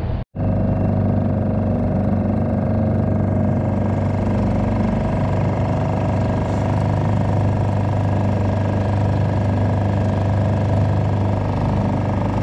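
Suzuki DF2.5 single-cylinder four-stroke portable outboard running steadily at an even speed on a new motor's break-in run, running beautifully. The sound drops out for a moment just after the start, then the motor runs without a change.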